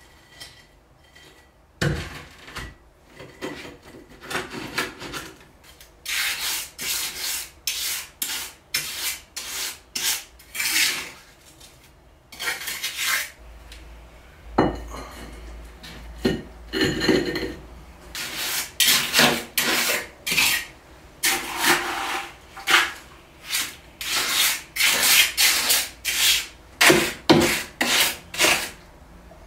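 Rough scraping strokes, about two a second, in wet concrete: steel weight plates being worked into it and a trowel smoothing it as new bilge ballast. A single knock breaks a short lull about halfway through.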